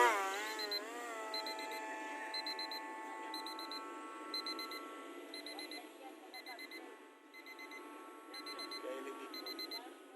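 Small electric motor of a DIY RC jet whining: its pitch wavers briefly, then holds steady and dips slightly near the end. Over it, an electronic beeper sounds in quick groups of about four high beeps, repeating less than a second apart.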